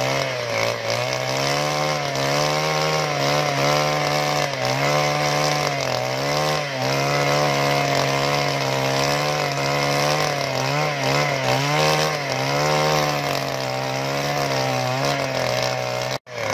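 Handheld two-stroke petrol earth auger running hard while boring a hole in soil. The engine note sags and recovers several times as the bit works into the ground.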